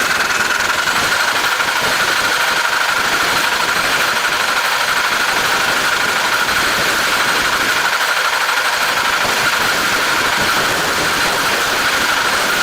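Tractor engine running steadily, with a constant high hum over the noise.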